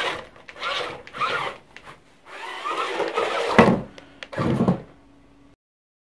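Small electric drive motors of a homemade cardboard remote-control monster truck whining in short bursts that rise and fall in pitch as it climbs over sofa cushions, with two louder, deeper bumps a little after the middle. The sound cuts off suddenly near the end.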